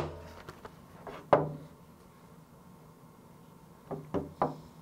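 Handling of boxed gear on a wooden workbench, mostly quiet room tone. A single sharp knock comes about a second in, and two short soft knocks come near the end.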